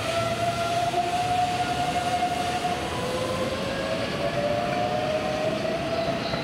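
Keihan electric commuter train running on the line: a steady rumble of wheels on rails with a motor whine that rises slowly in pitch, then a second rising whine starts about halfway through.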